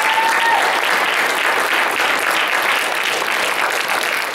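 Theatre audience applauding, a dense steady patter of many hands clapping, with a short whoop from one voice right at the start.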